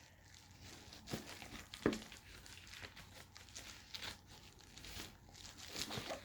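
Paper rustling and crinkling in short, irregular handlings.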